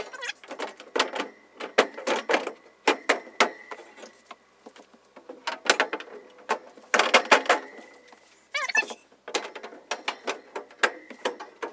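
Shelves being pushed and clipped into plastic back wall clips: a busy run of sharp clicks, knocks and rattles in clusters, with a brief warbling squeak a little before the end.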